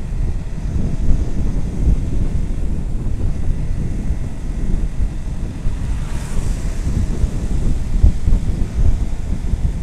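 Wind buffeting the microphone of a moving motorcycle, a loud, unsteady low rumble mixed with road noise. A brief higher hiss comes through about six seconds in.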